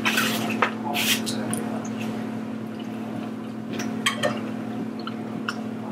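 Wet chewing and mouth smacks of people eating juicy sandwiches, with scattered short clicks and crinkles, over a steady low hum.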